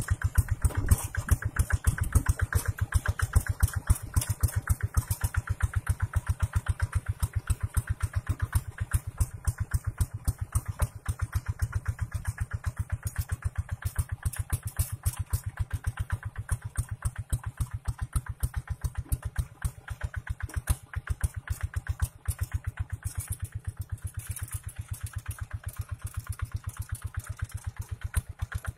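Two-wheel hand tractor's single-cylinder diesel engine running steadily under load as it pulls a plough through dry soil, a fast even train of firing pulses.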